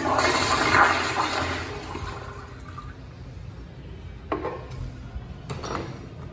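Toto CT705 flushometer toilet flushing: a loud rush of water that fades away over about three seconds as the bowl drains. A few sharp metallic clicks follow near the end, from the stall-door latch being worked.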